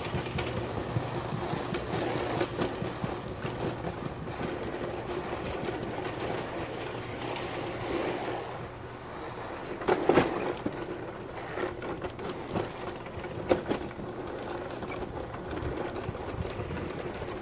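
Riding lawn mower's small engine running steadily as the mower drives along, with a sharp knock about ten seconds in and another a few seconds later.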